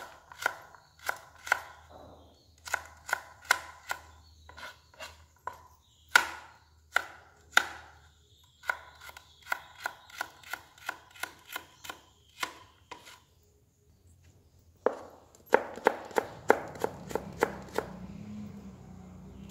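Kitchen knife dicing a carrot on a plastic cutting board: sharp knocks of the blade against the board in short runs of strokes, a pause of about a second and a half two-thirds of the way through, then a faster run of strokes near the end.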